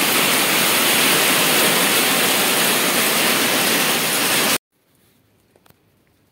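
Heavy downpour pouring onto a concrete yard, a dense, steady hiss of rain that cuts off abruptly about four and a half seconds in, leaving near silence.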